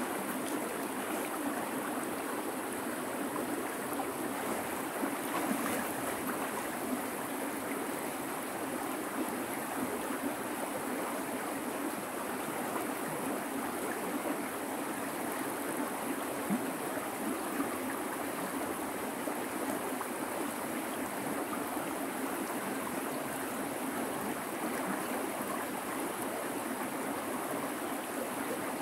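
River water rushing steadily, an even flowing noise without pauses.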